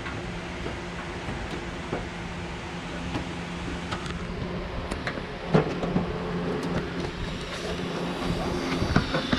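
Light knocks and taps of a car's front fender being pressed and fitted into place by hand, the loudest about five and a half seconds in, over a steady mechanical hum.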